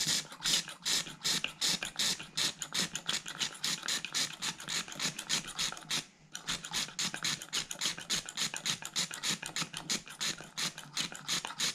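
Accelerator pump of an Edelbrock Performer 600 cfm carburetor being worked quickly by hand, about six scratchy clicking strokes a second with a short pause about six seconds in. It is pushing fuel system cleaner through the pump circuit, and the pump is working.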